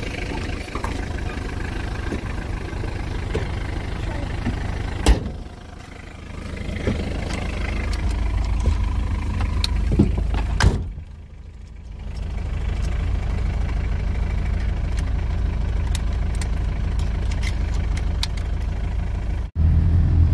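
Vehicle engine running with a steady low rumble. A sharp knock comes about five seconds in and another about ten seconds in. Near the end the sound cuts out for a moment and comes back as a louder rumble.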